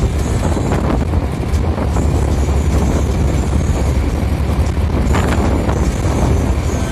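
Inside the cabin of a moving private bus at highway speed: the diesel engine and tyres make a steady low rumble, with wind noise and a few brief rattles.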